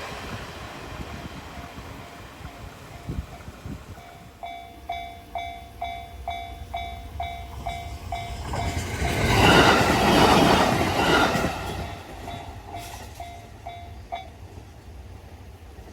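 Japanese level-crossing warning bell ringing in a quick steady kan-kan beat, about three strokes a second, then stopping suddenly near the end. Midway a train passes with a loud rush that swells and fades.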